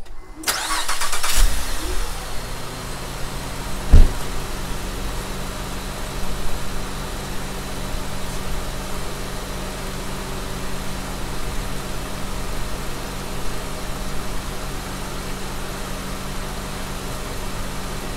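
Honda Pilot's 3.5 L V6 cranked by the starter for about a second, catching and settling into a steady, even idle with no clanking. A single loud thump about four seconds in.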